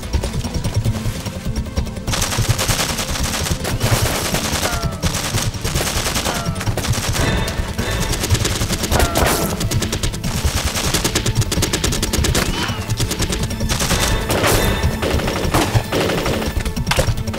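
Rapid gunfire in dense bursts, thickening about two seconds in, with background music underneath.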